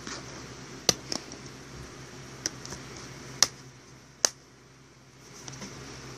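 Sharp plastic clicks of a DVD being handled in its case as the disc is pried off the case's centre hub. There are about five separate clicks, the loudest a little past three seconds and past four seconds.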